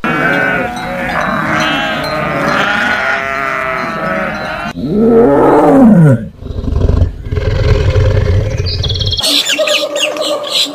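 A herd of goats bleating, many overlapping calls. About five seconds in, a tiger gives one loud roar that rises and falls in pitch, then a deep low growl. Near the end this gives way to rapid, high chirping from a squirrel monkey.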